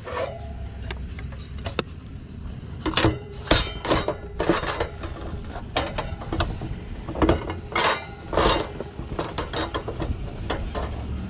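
Irregular clanks, clicks and knocks of metal parts being handled as a replacement condenser fan motor and its steel mounting plate are worked into place on the fan grille of a heat pump's top.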